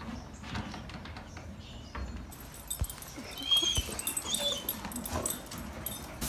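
An animal giving several short, high-pitched whines or chirps, with a couple of low knocks.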